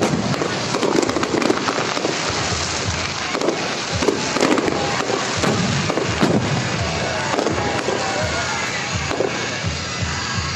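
Fireworks display: a rapid, continuous string of bangs and crackles from aerial shells bursting overhead.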